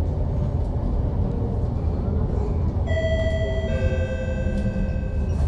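Steady low rumble inside a MAN Lion's City double-decker bus. About three seconds in, a two-note chime sounds, a higher note followed by a lower one that rings on until near the end.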